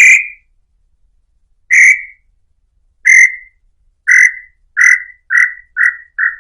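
Tataupa tinamou (inhambu-chintã) singing: a series of about eight clear whistled notes that come faster and faster, each shorter and a little lower than the one before.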